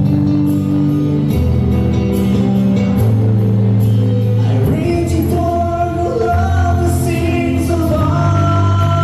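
Music with a singing voice over held chords and a bass line. The melody line comes in about halfway through.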